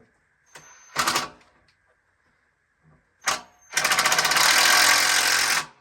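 Impact wrench driving a screw into the plastic chair frame: a brief trigger blip about a second in, another just after three seconds, then about two seconds of fast hammering rattle that stops abruptly. The screw is only run partway in, to be finished by hand.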